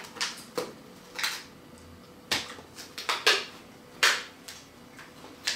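Clear plastic clamshell pack of white mushrooms crackling and clicking as it is handled and set down: about eight sharp, irregular clicks.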